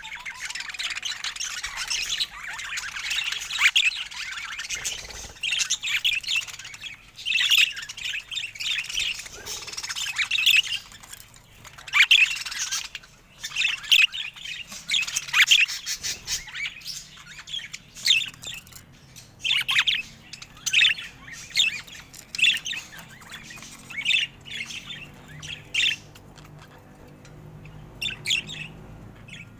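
Budgerigars chirping and chattering in quick, high-pitched bursts, thinning out in the last few seconds.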